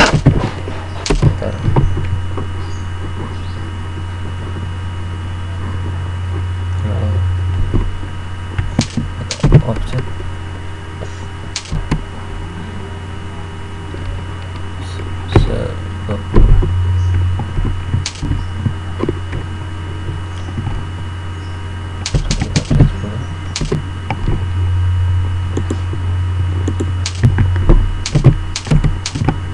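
Computer keyboard keystrokes and mouse clicks, coming in scattered short clusters, over a steady low hum.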